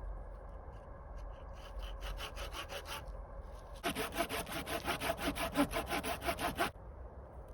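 Hand saw cutting through wood in rapid, even strokes: a short run, a pause, then a louder, longer run that stops abruptly near the end.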